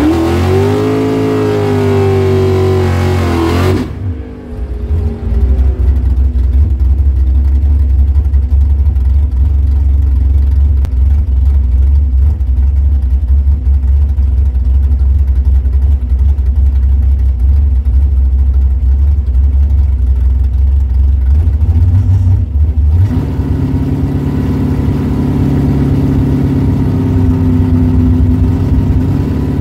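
Small-block Chevy V8 of a drag-race Camaro running, with a rising and falling note for the first four seconds, then idling low and steady; about three-quarters of the way through the engine note steps up and stays higher.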